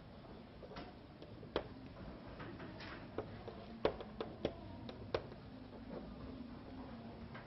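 A run of irregular light clicks and taps, about a dozen, bunched mostly in the middle, over a faint steady room hum.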